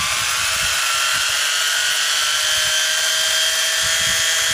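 Electric motor and drivetrain of a 1:16 RC drift car running at a steady high speed under held throttle: a loud, steady whine whose pitch creeps slowly upward.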